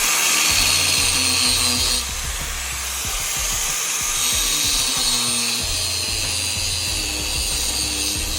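Angle grinder grinding steel, a steady high whine and hiss that eases off a little about two seconds in.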